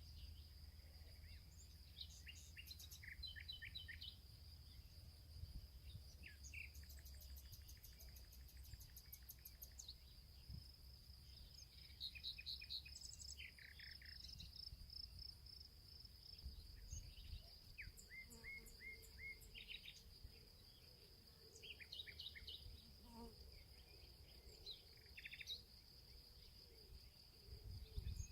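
Small songbirds chirping and trilling in short repeated phrases, over a continuous thin high-pitched whine and a faint low rumble.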